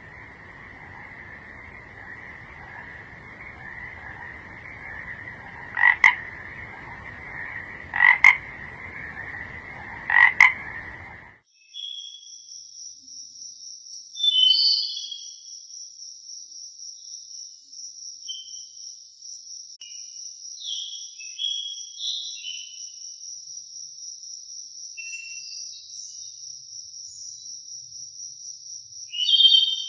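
A frog chorus with a steady droning trill, and three loud croaks about two seconds apart. It cuts off abruptly, about eleven seconds in, to a steady high-pitched trill with scattered short chirps.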